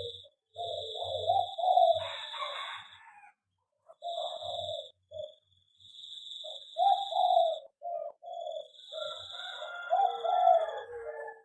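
Zebra doves (perkutut) cooing in bursts of short, repeated low notes. A thin, steady high-pitched tone comes and goes behind the cooing, and there are some brief scratchier chirps, about two seconds in and again near the end.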